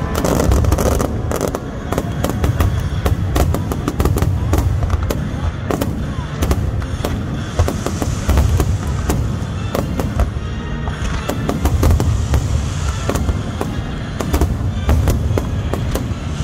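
Fireworks finale barrage: aerial shells bursting in many sharp, overlapping bangs in quick succession over a continuous deep rumble, without a break.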